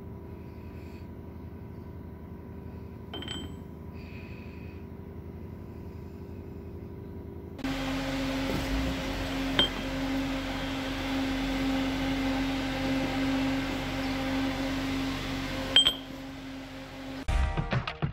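Steady hum of running workshop machinery with a few fixed tones. It gets louder with a strong low tone a little under halfway through, with a couple of sharp clicks. Music starts near the end.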